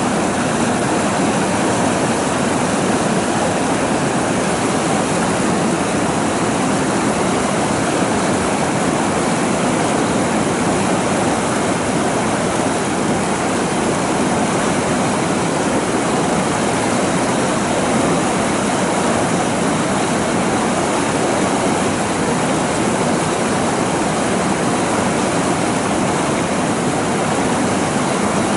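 Fast-flowing river running over rapids and rocks: a loud, steady rush of water.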